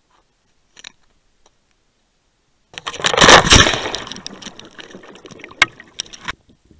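A diver's entry splash into the sea, recorded from a dive camera that goes under with the diver. It comes about three seconds in, sudden and loud, then turns into a fizzing rush of bubbles with scattered clicks that fades over about three seconds.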